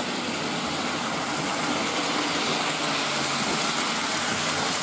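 Hornby OO gauge model trains running round a layout: a steady whirr of small electric motors and the rumble of wheels on the track.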